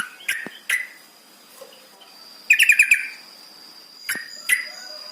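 Yellow-vented bulbul (trucukan) calling: a few short chirps, then a loud rapid run of about five notes about two and a half seconds in, then two more chirps near the end. A faint steady high tone runs under the second half.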